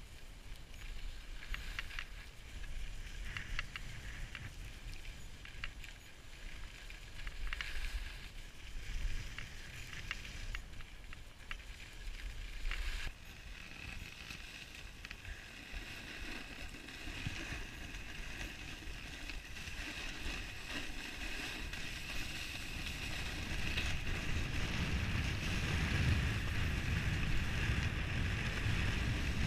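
Skis sliding and scraping over groomed snow, with scattered short clicks and scrapes in the first half. A sudden change partway through leads into a steadier hiss of snow under the skis, with wind rumbling on the microphone and growing louder near the end.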